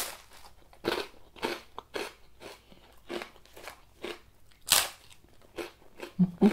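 Close-up crunching of grilled toast being bitten and chewed, about two crisp crunches a second, the loudest about five seconds in.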